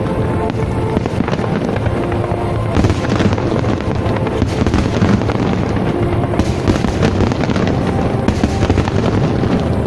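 Fireworks display: a dense, continuous run of bangs and crackles with no pause, with music playing alongside.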